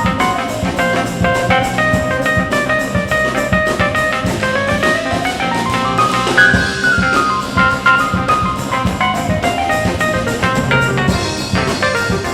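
Instrumental band music: a drum kit keeps a steady beat under guitar and a lead melody line, which glides upward about halfway through.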